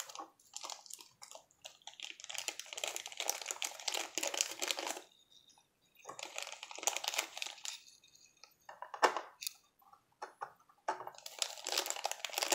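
Thin clear plastic bag crinkling and rustling in the hands as it is opened, in bursts with short pauses, with a few sharp clicks in between.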